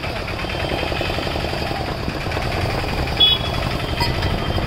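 An engine idling steadily with a fast, low rumble, with a couple of light clicks about three and four seconds in.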